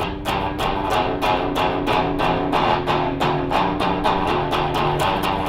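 Electric guitar played through a Line 6 multi-effect pedal with its ring modulator on, which mangles the signal: quick, evenly repeated picked notes, about four or five a second, over a low sustained note.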